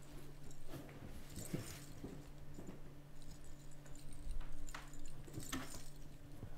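Soft footsteps and the light knocks and rustle of a cardboard box being carried and handled, over a low steady hum.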